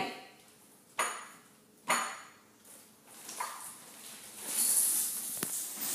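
A bike helmet's box and packaging being handled on a stone countertop: two sharp knocks about a second apart, then a rustle of packaging in the last couple of seconds.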